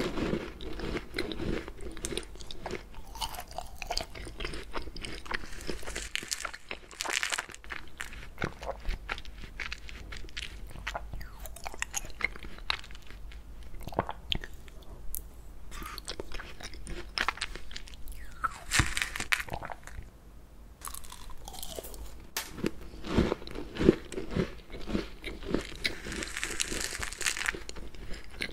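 Close-miked crunching and chewing of a mouthful of small crunchy topping balls from an ice cream cake, with many crisp crackles. Near the end a metal spoon scoops more of the balls off the cake board.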